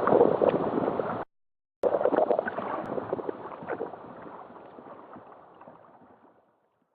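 Waves washing on a shingle beach, with wind buffeting the microphone. The sound cuts out for about half a second just over a second in, then returns and fades away.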